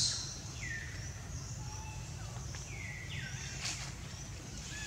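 Short, high calls that sweep in pitch, three or four times, over a steady low rumble.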